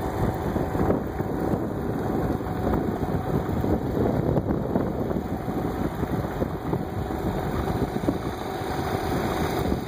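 A vehicle driving slowly along a gravel road, its engine running steadily, with wind on the microphone.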